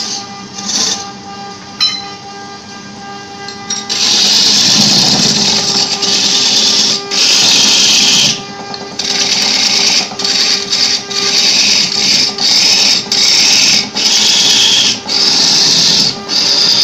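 Wood lathe turning a large wooden blank while a hand-held turning tool cuts into it: a steady motor hum, then from about four seconds in a loud cutting noise that comes in repeated passes of one to two seconds with short breaks between them.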